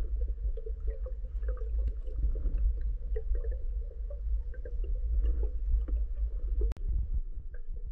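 Underwater noise picked up through the housing of a camera mounted on a speargun as it moves through water: a steady low rumble of water moving past, with faint crackles and small clicks. A single sharp click comes near the end, after which the rumble thins out.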